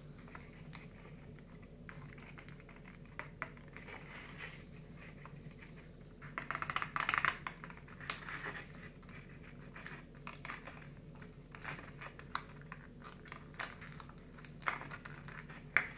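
Stiff card 3D-puzzle pieces handled, folded and their tabs pushed into slots: scattered small clicks and scrapes, with a denser run of rapid crackling near the middle.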